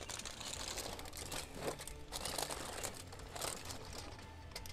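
Aluminium foil boat crinkling and rustling as gloved hands pull it open and tip it, the noise coming and going in several spells.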